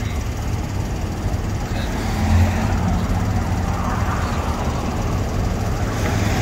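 Road traffic going by: a steady low rumble of cars, swelling as a vehicle passes about two seconds in.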